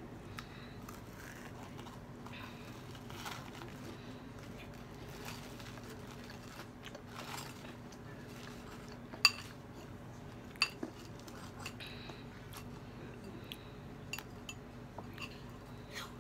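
Light clinks and taps of utensils and dishes as people eat at a table, with two sharper clinks standing out about nine and ten and a half seconds in, over a steady low hum.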